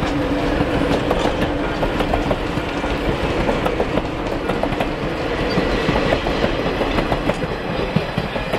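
Prairie Dog Central heritage passenger coaches and caboose rolling past at close range, their wheels clicking and clattering on the rails in a steady run.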